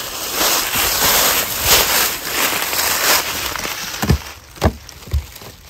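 A metal hive tool working at wooden beehive boxes: scratchy scraping and rustling, then three dull knocks about half a second apart as it pries at the seam between the boxes.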